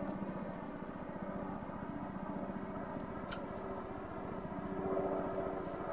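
A steady low mechanical hum that swells slightly about five seconds in, with two faint clicks near the middle.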